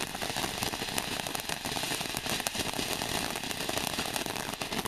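Ground fountain firework spraying sparks: a steady hiss thick with fast crackling that keeps up evenly.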